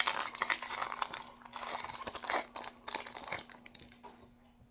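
Foil trading-card booster pack wrapper crinkling and being torn open, the rustling dying away about three and a half seconds in.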